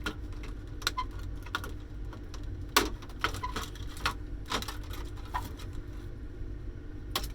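Scattered light clicks and knocks of small metal and plastic parts and tools being handled during the teardown of an electronic cash register, one louder knock a little under three seconds in, over a steady low hum.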